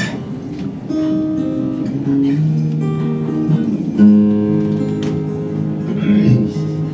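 Acoustic guitar playing chords in a slow instrumental intro to a song, with a new chord struck every second or two.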